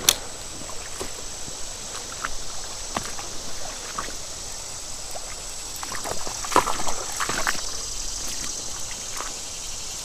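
Shallow river water running over a rocky riffle, a steady rushing trickle, with a sharp click at the start and a few brief clicks and taps about six to seven seconds in, as a spinning rod and reel are handled.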